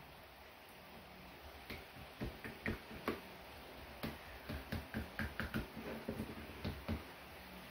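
Raw fish being handled and pricked on a wooden cutting board: a run of soft, irregular clicks and taps starting about two seconds in.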